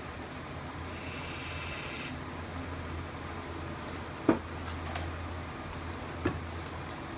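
Nova Comet II wood lathe motor running with a steady low hum, a turning gouge hissing against the spinning log for about a second near the start. Two short sharp knocks come later, one about halfway through and one near the end.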